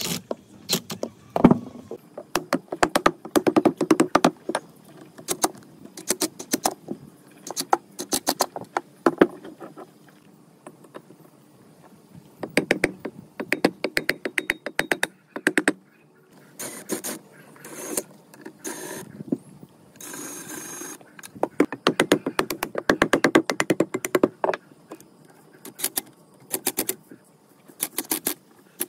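Bursts of rapid clicks and light knocks from metal parts and hand tools being handled, coming in clusters with short pauses between them. A short steady noise lasts about a second around twenty seconds in.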